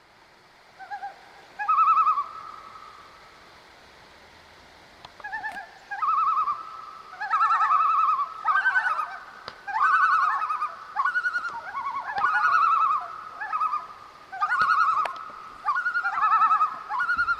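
Several common loons giving tremolo calls: quavering, laughing calls that overlap one another. A few calls come about one and two seconds in, then, after a lull, near-continuous calling starts about six seconds in.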